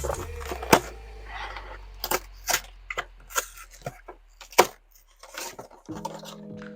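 Irregular clicks and light knocks from a cardboard Pokémon card box being handled, about a dozen at uneven spacing. Background music fades out at the start and comes back near the end.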